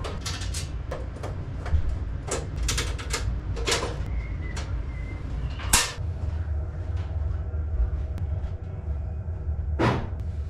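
Steel cover of an old ITE indoor load center being handled and taken off: a series of separate metallic clicks and knocks, the sharpest about six seconds in as the cover is set down against the wall. A low steady hum runs underneath.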